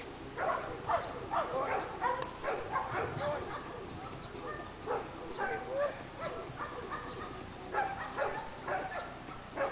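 A dog during bite work, making a string of short, pitched calls that bend in pitch while it grips and tugs a bite sleeve.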